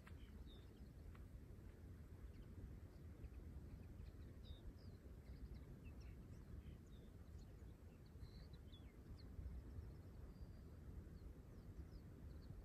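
Near silence on an open course: a low steady rumble with faint, scattered short bird chirps.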